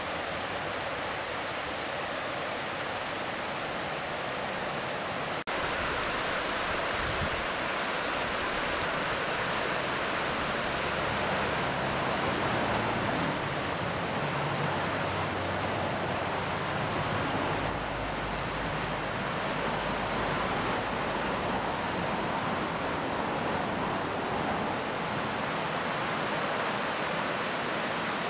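Hot spring water running steadily down the side of a mineral cone, a continuous rush of splashing water. About five seconds in it becomes slightly louder and stays that way.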